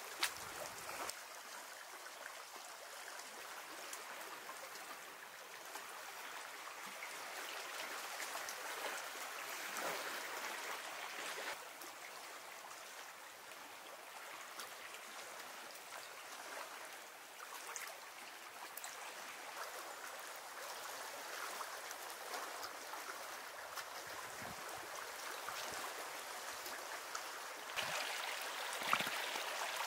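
Steady trickling, gurgling water.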